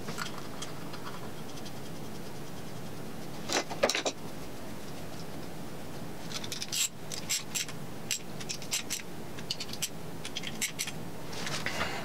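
Small steel bolts and tools being handled against a metal magnetic parts tray and the engine block: two louder knocks about four seconds in, then an irregular run of light metallic clicks and clinks, and a short scrape near the end.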